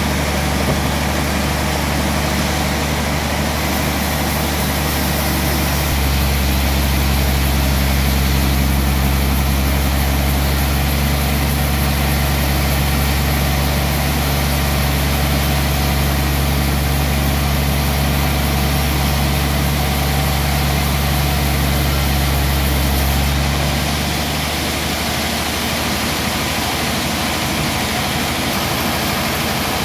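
Large log bandsaw mill running with a steady, engine-like hum. The hum grows deeper and stronger about six seconds in, then eases back about three quarters of the way through.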